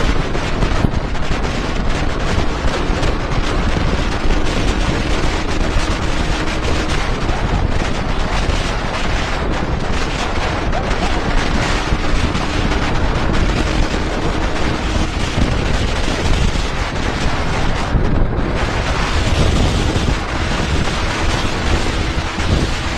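Heavy, steady wind buffeting on the microphone of a motorcycle riding at speed, with the bike's engine running underneath.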